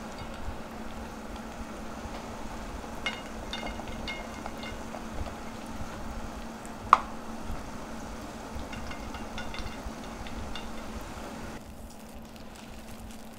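Spoon stirring a soy-sauce and sugar seasoning mixture in a pan, with a light sizzle over a steady low hum. One sharp clink of the spoon against the pan comes about seven seconds in, and the sound turns quieter near the end.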